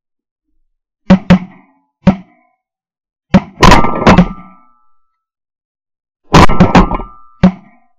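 Several duck hunters' shotguns firing in rapid volleys: about ten loud blasts in three bursts, the first about a second in, a denser burst around three and a half seconds in, and another around six and a half seconds in, with a last single shot near the end.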